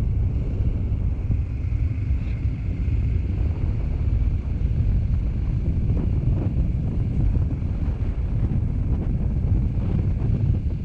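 Wind noise on the microphone over a KTM 500 motorcycle's single-cylinder engine running steadily while riding.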